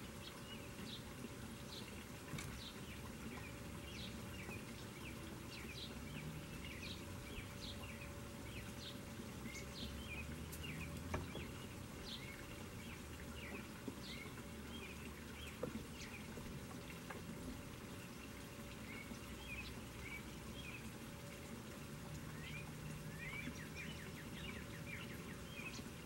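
Small birds chirping in many short, quick notes, over the steady splash of water pouring from a garden hand-pump fountain into a rock pond.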